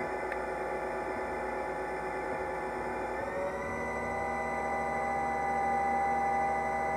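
Twin-spindle CNC lathe running as it turns a small brass part: a steady machine whine of several tones that glides up in pitch about three seconds in and holds at the higher pitch.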